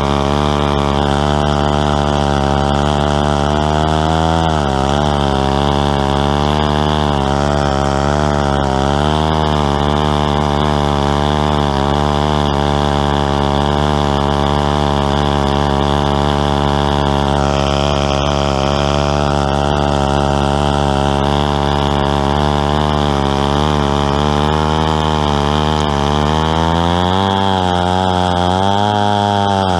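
West German Stihl 090, a big two-stroke chainsaw, running hard under load as it rips a tulip poplar log lengthwise in a homemade chainsaw mill. The engine note holds steady but sags and recovers a few times, most noticeably near the end.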